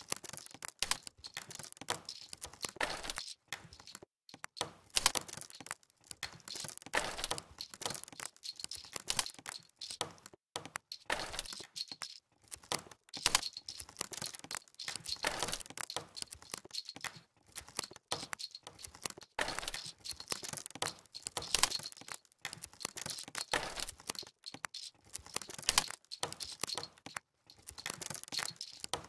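Campfire crackling: a dense, irregular run of small crackles and pops, with no steady beat.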